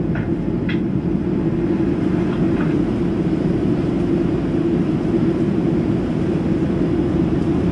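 Steady cabin noise inside a Boeing 737-700 in flight, heard from a window seat over the wing: a low, even drone from its CFM56-7B jet engines and the airflow.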